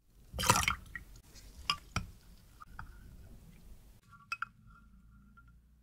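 Glass measuring jug of milk being handled: a brief noisy clatter about half a second in, then a couple of sharp glass clinks. Near the end a spatula stirring the milk knocks the side of the glass jug twice, with a short ringing clink.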